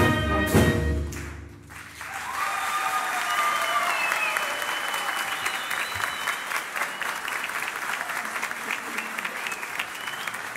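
A wind band's final chord ends about a second in, and after a brief pause an audience breaks into applause, with a few cheers early in it.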